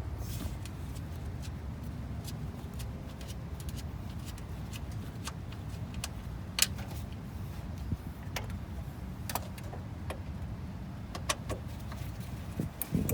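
Scattered light metallic clicks and clinks of hand tools and small parts being handled while bolts and a wiring-harness clip are removed, over a steady low background hum.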